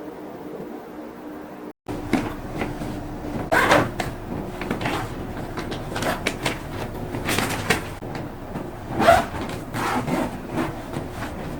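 A steady household hum for about two seconds, cut off suddenly, then objects being handled: an irregular run of rustles, scrapes and light knocks as things are moved about and set down.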